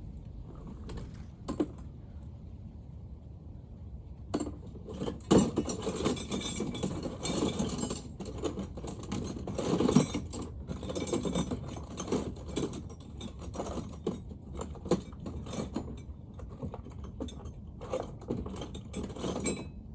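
Small hand tools clinking, rattling and scraping against metal engine parts in irregular bursts, busiest through the middle, while working at a part of a Wisconsin V4 engine that will not come out.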